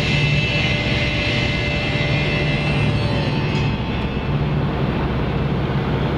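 Car engine and tyre noise heard from inside the cabin while driving steadily along a paved road, a steady rumble throughout.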